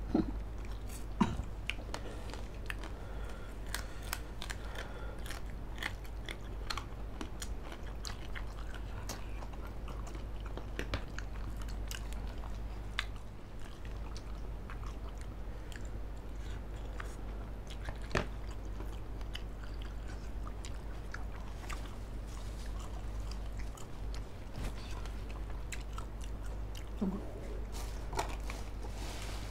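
Two people chewing and biting grilled chicken and instant noodles, with scattered short wet clicks and crunches from their mouths over a steady low hum.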